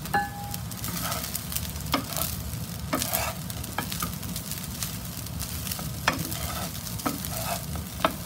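A spatula stirring and scraping fried rice in a nonstick frying pan over a steady sizzle, with sharp clicks against the pan about once a second. A short ring sounds right at the start.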